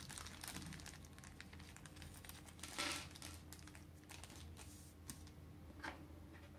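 Small packaging being handled: a run of light clicks and soft rustles, with one louder rustle a little under three seconds in.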